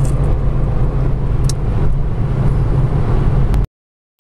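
Steady engine and road noise inside a Toyota car's cabin at highway speed. It cuts off abruptly to dead silence about three and a half seconds in.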